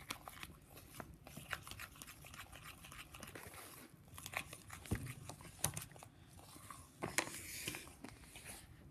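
Spoon stirring sticky homemade slime in a bowl, making faint scattered clicks, taps and squelches, with a few louder knocks about halfway through and again later. The slime is not yet fully clumped.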